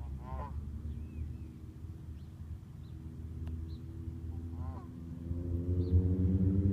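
A steady low hum that grows louder in the last couple of seconds, with two short honking bird calls, one right at the start and one near the end.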